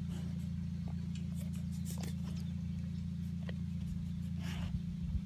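A steady low machine hum, with faint scattered clicks and a brief rustling hiss about four and a half seconds in.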